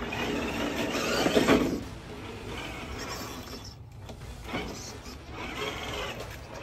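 RC rock crawler (Axial SCX10 III Base Camp) climbing over rocks. Its brushless motor and geared drivetrain whine in bursts as it is driven, loudest about a second and a half in, with shorter bursts near the end.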